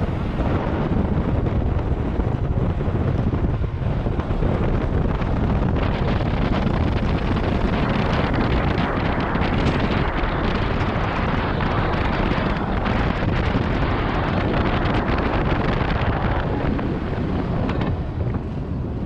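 Steady wind rushing over the microphone of a motor scooter on the move.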